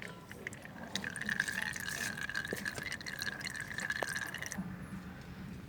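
Engine oil streaming out of a TVS Ntorq 125 scooter's drain hole into a container: a steady trickling, splashing pour that starts about a second in and stops suddenly about a second before the end.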